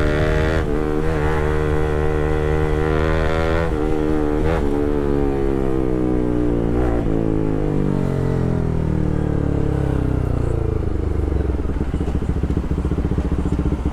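Bajaj Pulsar RS200's single-cylinder engine through an Akrapovic full-system titanium exhaust, running loud under way. Its pitch holds with a few brief dips, then falls steadily from about four seconds in as the revs drop, and stays low and uneven near the end.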